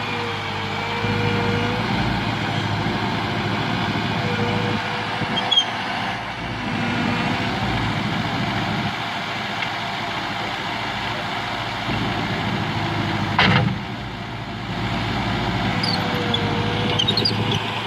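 Skid steer loader engine running steadily, with one sharp knock about three-quarters of the way through.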